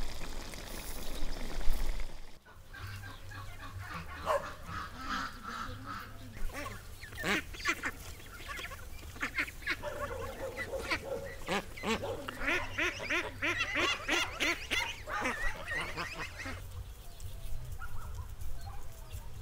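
A flock of white domestic geese honking: many short calls overlapping, starting a couple of seconds in and dying away near the end.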